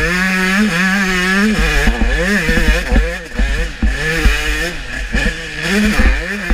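Dirt bike engine being ridden hard, revving up and falling off several times, its pitch climbing and dropping as the throttle opens and closes.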